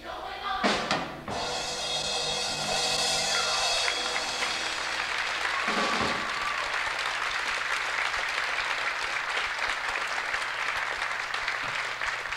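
The music ends with a loud final hit about a second in, then an audience applauds steadily.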